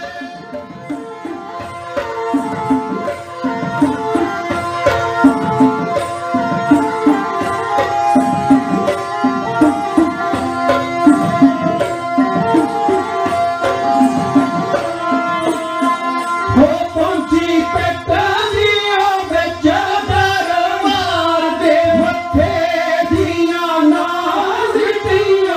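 Punjabi dhadi music: a sarangi playing a melody over quick beats from dhadd hourglass hand drums, with male voices singing from about two-thirds of the way through.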